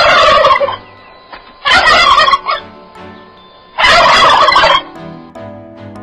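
Turkey gobbling: three loud, rapid warbling gobbles about two seconds apart, with soft background music between them.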